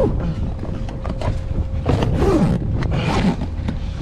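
Steady low rumble of wind buffeting the microphone aboard a boat, with scattered knocks and rustles from handling, and a falling groan-like sound about two seconds in.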